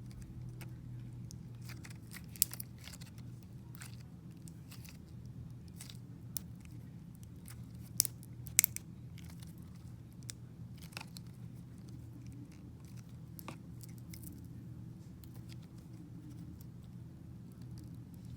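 Slime being mixed, giving irregular crackling clicks and pops, a few sharper ones about two and a half and eight seconds in, over a steady low hum.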